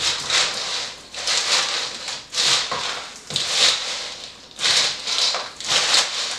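Popcorn coated in melted marshmallow being stirred with a wooden spoon in a large metal bowl: a rustling, crunching swish with each stroke, about one or two strokes a second.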